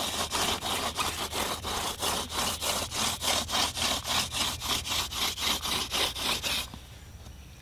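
Hand-drill fire kit: a wooden spindle spun back and forth between the palms, its tip grinding in a fresh divot in the fireboard to burn the hole in. A rhythmic rasping of about four to five strokes a second, which stops near the end.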